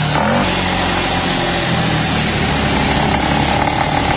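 Motor scooter engine running steadily at idle.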